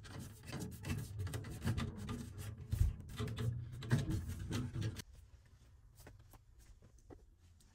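Close handling noise: rubbing, scraping and light knocks, loudest about three and four seconds in, dropping to a few faint clicks after about five seconds.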